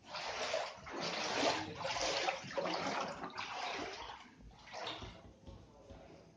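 Water rushing and splashing in several surges of a second or so each, dying away near the end.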